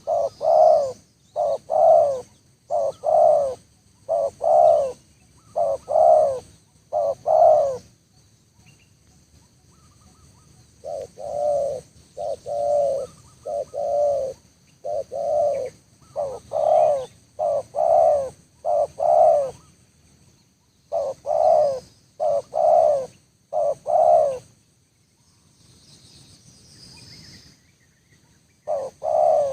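Spotted dove cooing over and over, short coos in close phrases, breaking off for a few seconds about eight seconds in and again near the end before starting once more.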